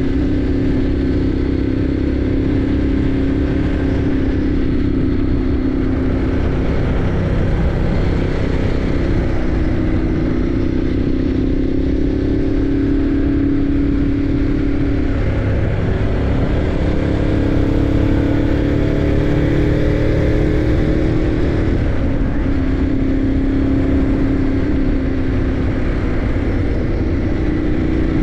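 Motorcycle engine running at a steady cruise, heard from a camera mounted low on the bike, over a steady rush of wind and road noise. The engine note breaks and changes pitch about halfway through, and shifts again a little later.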